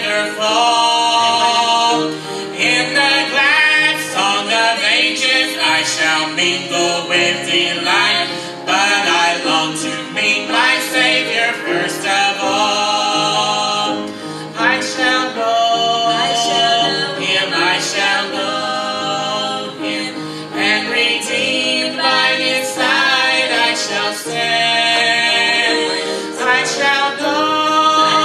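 A man and a woman singing a gospel song together as a duet, with long held notes.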